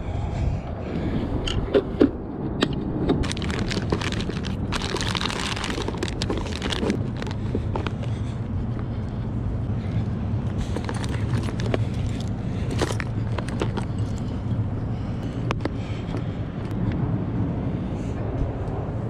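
Keys jangling and fishing gear rattling in hand while walking, with a few sharp knocks about two seconds in, over a steady low hum of street traffic.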